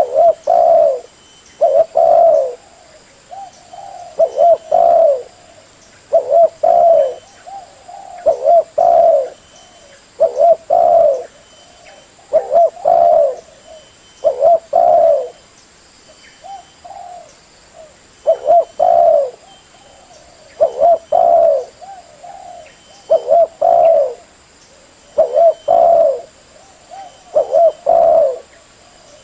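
Spotted dove cooing: short phrases of two or three coos, repeated about every two seconds. It is a recording used as a lure call to draw tekukur doves in.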